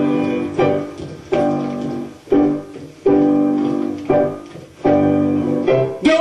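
Piano playing a slow series of chords, struck roughly once a second, each left to ring and fade before the next.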